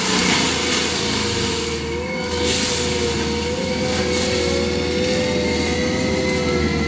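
Prinoth M450s forestry mulcher running on an ASV RT-120 compact track loader, grinding into brush and small trees. It makes a loud, steady whine that wavers a little in pitch as the load changes, over a dense churning noise.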